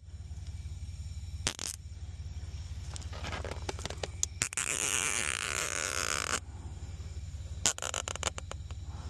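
A plastic zip tie is pulled tight around a broken air line: a rasping ratchet that grows louder for about two seconds and stops suddenly, then a quick run of sharp clicks as it is cinched. A steady low hum runs underneath.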